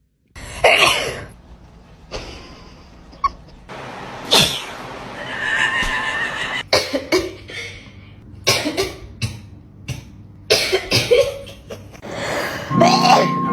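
A cat sneezing again and again: a series of short, sharp sneezes a second or two apart.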